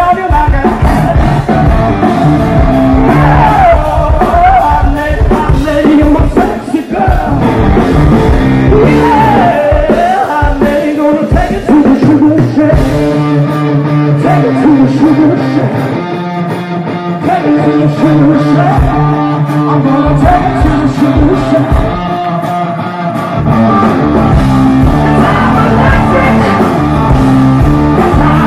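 Rock band playing live, with distorted electric guitar, bass, drums and a male singer. The drums drop back for several seconds in the middle, and the full band returns near the end.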